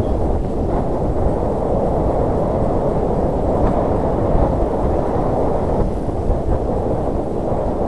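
Steady, loud wind rumble buffeting the microphone while riding, with no engine note or other distinct sound standing out.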